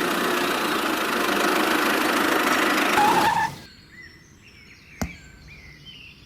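A small motor runs loud and steady, then stops about three and a half seconds in. Faint bird chirps follow, with a sharp click near the end.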